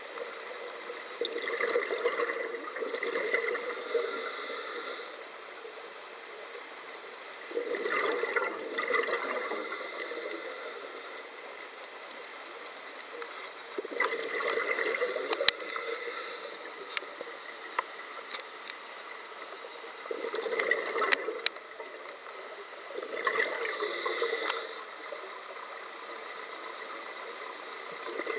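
Scuba diver's regulator breathing underwater: bursts of bubbling exhalation with breathy hiss every few seconds, about five breaths. A few sharp clicks sound between the breaths.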